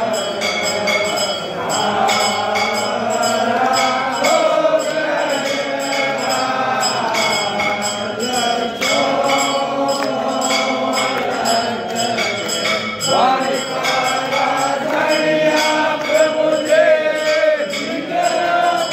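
Devotional aarti singing, one melodic voice line gliding through long held notes, with bells ringing in a rapid repeating pattern underneath.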